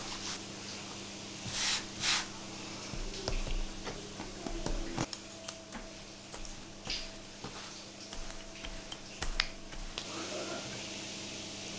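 A ball of dough being pressed flat by hand on a floured wooden board, then rolled out with a wooden rolling pin: two short swishes early, then soft scrapes and scattered light knocks of the pin on the board. A low steady hum sits underneath.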